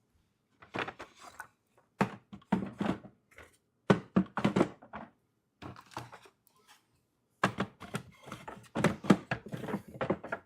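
Wooden beehive frames knocking and clattering against a cedar hive box as they are set in one after another, in several bunches of short knocks.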